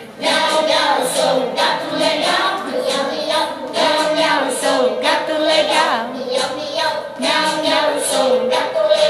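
A song: voices singing a melody over instrumental backing music.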